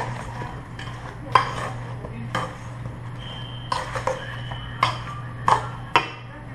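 Metal tongs clinking against a stainless steel mixing bowl while chicken wings are tossed in it: about seven sharp clinks spaced roughly a second apart, with the bowl ringing briefly near the middle. A steady low hum sits underneath.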